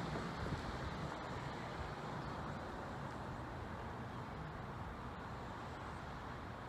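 Steady distant road traffic, cars and a truck running past, slowly easing.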